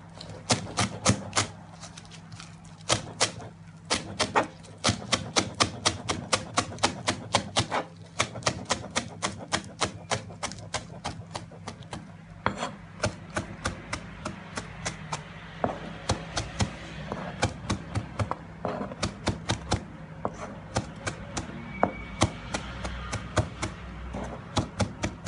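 Fresh coriander being finely chopped with a large kitchen knife, the blade knocking on the cutting board in quick, even strokes of about four a second, with a couple of brief pauses.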